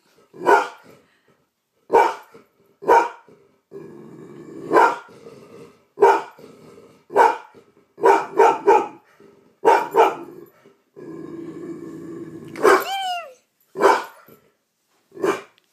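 Yellow Labrador retriever barking at its own reflection in a mirror: about a dozen single barks a second or two apart, with low growling in between.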